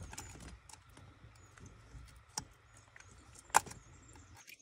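Light clicks and small rattles of handling gear while unhooking a fish: fish grips and a hooked soft-plastic lure worked over a landing net, with one sharper click about three and a half seconds in. The sound cuts off suddenly just before the end.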